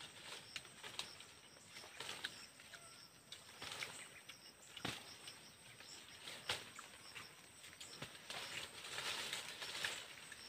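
Faint outdoor ambience with scattered small clicks and crackles, then dry leaf litter rustling from about eight seconds in as someone shifts and stands up in it.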